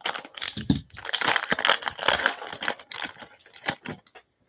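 Plastic wrapper of a Select football card pack crinkling as it is cut and torn open, dense crackling for about three seconds, then a few light clicks as the cards are handled.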